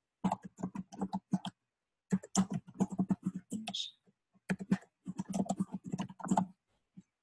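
Typing on a computer keyboard: quick runs of keystrokes in three bursts with short pauses between, and a single last tap near the end.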